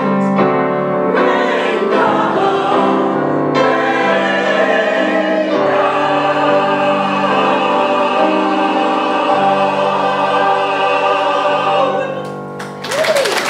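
Mixed church choir singing a slow hymn in parts, ending on a long held chord that is cut off about twelve seconds in. Applause starts just after.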